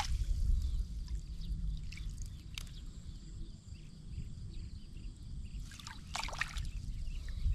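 Water trickling and splashing as a fishing net is handled, over a low rumble. There is a short sharp sound about two and a half seconds in and a louder splash about six seconds in.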